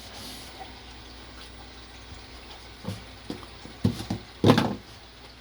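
Fish-tank water running steadily, with a few light knocks and a louder sharp slap about four and a half seconds in, the kind of sound the keeper takes for a fish jumping in the tank.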